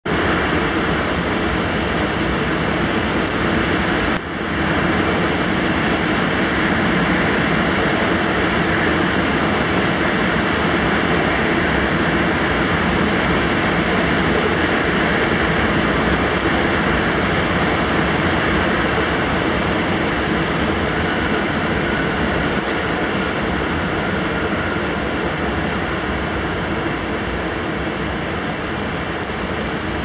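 Storm-force typhoon wind funnelled between high-rise tower blocks, with heavy wind-driven rain: a loud, steady rushing noise. It dips briefly with a click about four seconds in.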